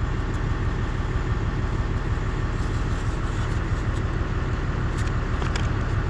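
An engine idling steadily, a low even rumble, with a few faint clicks near the end.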